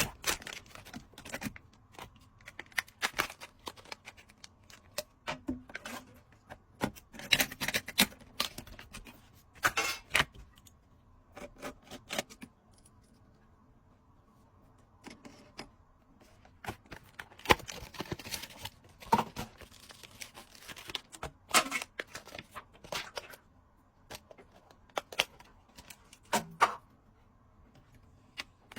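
Hands handling computer parts and packaging: irregular clicks, taps and rustling, with a quiet pause about halfway through.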